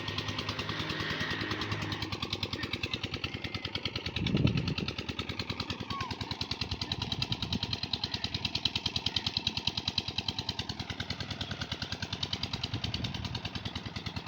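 An engine running at a steady chug of about five beats a second. A short, louder low thump comes about four seconds in.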